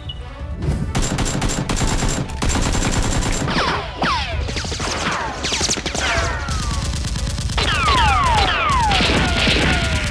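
Rapid automatic gunfire starting just under a second in, with falling whistling tones over it from about four seconds in.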